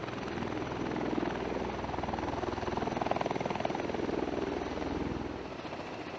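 V-22 Osprey tiltrotor's proprotors and engines running, a rapid, even rotor beat over a steady rush. The deepest part of the sound drops away near the end.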